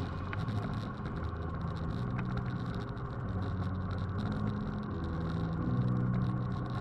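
Scag commercial lawn mower's engine running while mowing.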